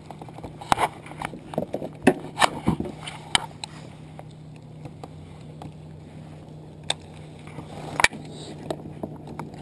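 Sharp, irregular clicks and knocks of a fishing rod, reel and tackle being handled against a plastic kayak hull, most of them in the first few seconds and one louder knock near the end, over a steady low hum.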